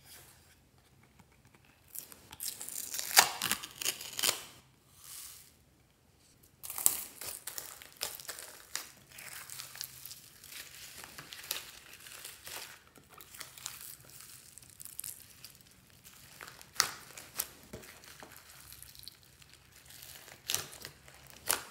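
Slime packed with foam beads and plastic add-ins being squished and folded by hand: crinkling and sticky crackling with many small pops. A loud burst of crinkling comes about two seconds in, then a short lull, then steady crackling to the end.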